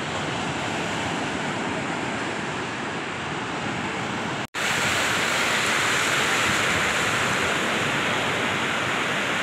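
Sea waves breaking and washing over flat shoreline rocks: a steady, loud rushing surf. It cuts out for an instant about halfway through and comes back louder.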